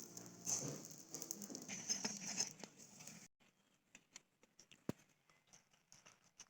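Light scraping and tapping of small miniature cooking utensils for about three seconds, then a few faint clicks and one sharper tick.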